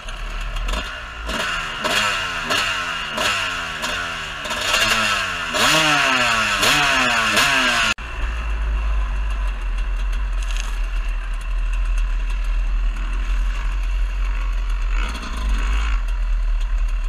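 Off-road motorcycle engine revving in repeated bursts, its pitch climbing and dropping about once a second. After a sudden cut about eight seconds in, a dirt bike is heard riding at steady speed, with a low wind rumble on the helmet camera over the engine.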